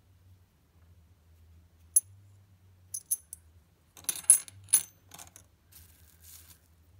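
Old silver coins, among them 90% silver Washington quarters, clinking as they are set down on a wooden table and against the other coins. There is a single clink about two seconds in, then a run of sharp metallic clinks with a short ring, busiest between four and five seconds in.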